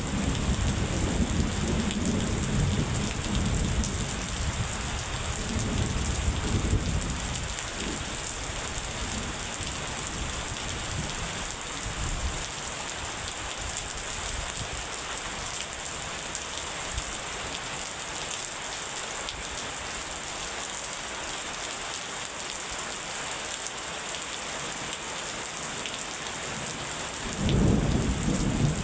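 Steady rain with rolling thunder. A long low rumble of thunder dies away about seven seconds in, and another rumble begins near the end.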